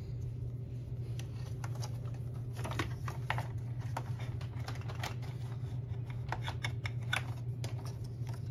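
Hands handling the plastic belt and tensioner area on the underside of a Hoover upright vacuum, making scattered light clicks and taps, over a steady low hum.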